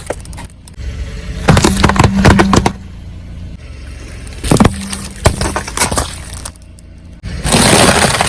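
A car tyre crushing brittle objects, with clusters of sharp cracks and snaps about a second and a half in and again around five seconds in, over a faint engine hum. A louder, sustained noisy crunching stretch begins near the end.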